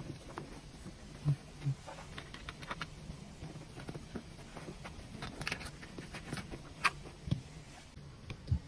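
Scattered light clicks, taps and rustling from hands fitting a car seat cover: a plastic trim tool tucks the cover's edge into the seat and a plastic clip is handled under the seat. A few louder knocks stand out among the small clicks.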